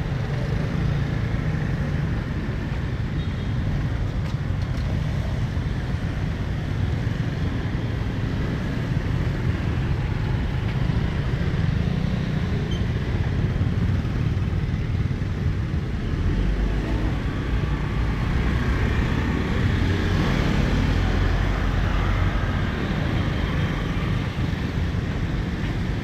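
Steady city street traffic noise, with a vehicle's low rumble swelling and passing about two-thirds of the way through.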